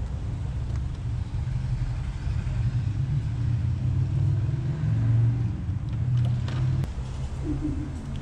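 A continuous low rumble. A few light clicks and rattles of tools being handled come about six to seven seconds in.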